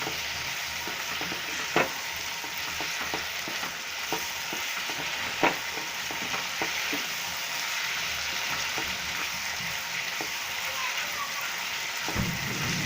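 Chicken in masala and curd sizzling in oil in a kadai as it is stirred, a steady frying hiss with a few sharp clicks of the stirring utensil against the pan and a low thump near the end.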